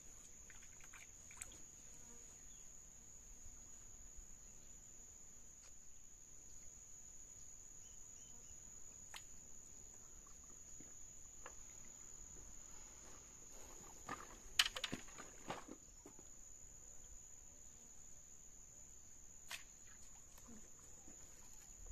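Steady high-pitched trill of insects, cricket-like, going on without a break. About two-thirds of the way through, a brief cluster of knocks and rustling stands out as the loudest sound, with a few single faint clicks elsewhere.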